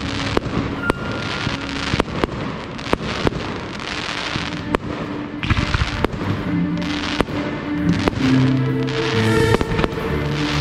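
Aerial fireworks going off in quick succession: many sharp bangs and crackles from bursting shells, over music with held notes that grows more prominent in the second half.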